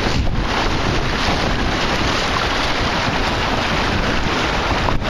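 Strong wind buffeting the microphone of an on-board camera on a Snipe sailing dinghy in a gusty breeze, a loud steady rushing noise, with water rushing and splashing along the hull beneath it.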